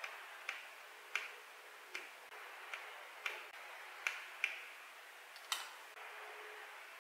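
About ten sharp, light clicks at uneven intervals over the first five and a half seconds, from fingers and a small tool pressing leather pieces down on a stone slab. A faint steady hiss lies underneath.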